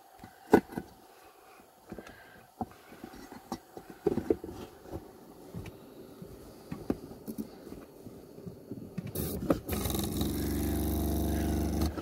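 Plastic heater cover being pushed and worked onto the diesel heater's casing: scattered clicks, knocks and scrapes as it refuses to seat. About ten seconds in, a loud steady hum with a buzzing tone starts and holds to the end.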